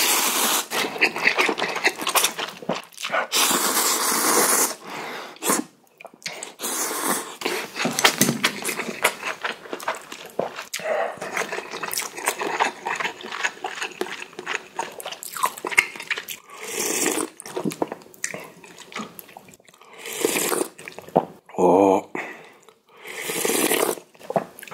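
Instant ramen noodles slurped loudly off chopsticks for about the first five seconds, then chewing and repeated short slurps of broth from a wooden spoon. A brief vocal sound from the eater comes about three quarters of the way through.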